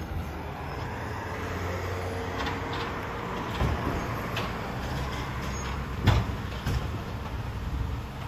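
Volvo side-loader garbage truck running at low speed while its automated side arm grabs and lifts a wheelie bin, with a few knocks and one sharp, loud clunk about six seconds in.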